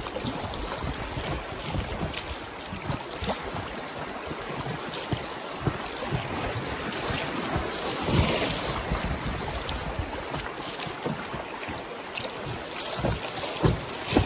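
Strong headwind buffeting the microphone in uneven gusts, with a stronger gust about eight seconds in.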